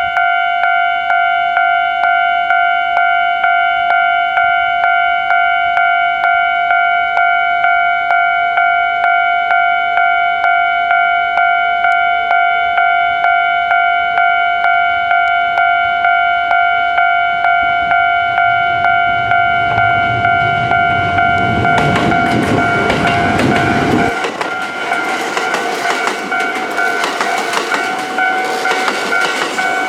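Japanese railway level-crossing warning bell ringing steadily at about two strikes a second. About twenty seconds in, a Kintetsu express train of 5209 series and 2800 series cars passes over the crossing, and its rising rumble and clatter drown the bell. The deep rumble cuts off suddenly about four seconds later, while the clatter continues.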